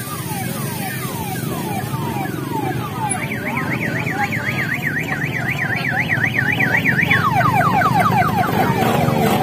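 Electronic siren on a parade float made up as an ambulance, switching patterns: falling whoops about twice a second, then a fast high warble from about three seconds in, then quicker falling sweeps near the end. A vehicle engine runs underneath, and the sound grows louder as it comes closer.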